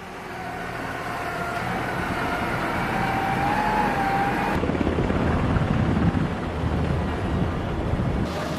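Large forklift engine running as it drives with a heavy load, a steady mechanical noise with a faint, slightly wavering whine over it in the first half. The sound changes abruptly about halfway through and again near the end.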